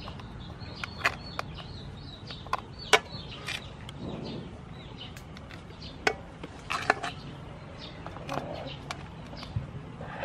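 Metal tongs clinking and tapping against a steel serving platter and the hard shells of cooked slipper lobsters as they are set in place: scattered, irregular sharp clicks, a few louder than the rest.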